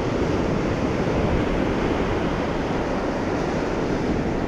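Ocean surf rushing steadily with no single wave standing out, heard over a low rumble of wind on the microphone.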